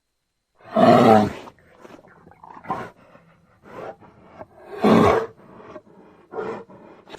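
Bear roaring: two loud roars about a second and five seconds in, with quieter, shorter calls between them and another roar starting at the very end.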